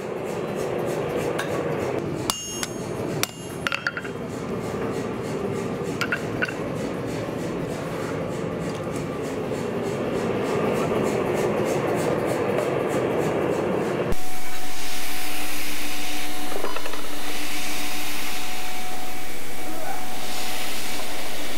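A steady rushing shop noise with a few sharp metallic clinks of steel and tongs. About 14 seconds in, it cuts abruptly to a Wilmont belt grinder running at speed, grinding a steel knife blade, with a steady motor hum under the grinding.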